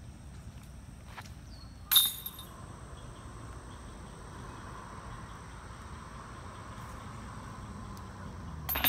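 A sharp metallic clink about two seconds in that rings briefly, and another sharp knock near the end, over a faint steady outdoor background.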